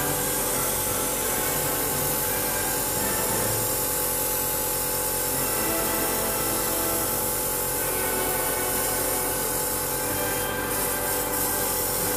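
Airbrush spraying paint in a steady hiss, laying a second coat, over a constant mechanical hum.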